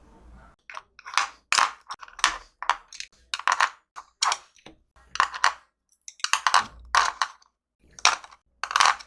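Wooden colored pencils clacking against one another and against a hard surface as they are picked up and set down: a dozen or so short, sharp clatters at irregular intervals, starting about a second in.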